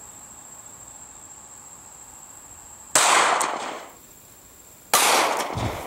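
Two sharp pistol shots from a Smith & Wesson Bodyguard .380 ACP, about two seconds apart, each dying away over most of a second. Before the first shot, insects trill with a steady high tone.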